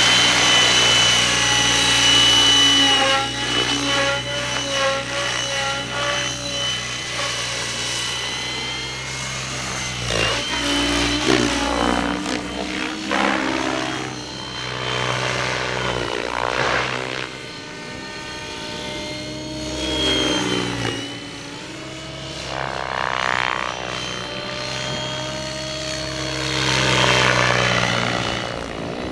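Gaui X7 electric radio-controlled helicopter in flight: the whine of its rotors and motor rising and falling in pitch as it manoeuvres and passes by, with several sweeping glides.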